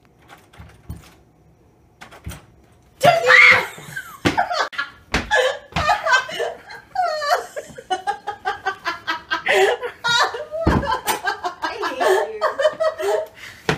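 Quiet for a few seconds with a couple of small knocks, then a sudden loud cry about three seconds in, followed by hearty laughter in quick bursts from people in a small room.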